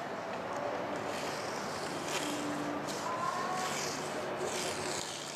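Indistinct background chatter of a crowd, steady throughout, with a few faint clicks.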